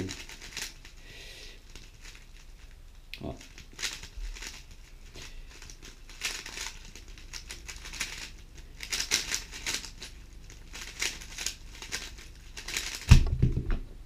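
GAN 11 M Pro 3x3 speedcube being turned at speed, the layers clicking and clattering in quick runs that thicken in the second half. A loud thump about a second before the end as the finished solve ends and the cube is set down.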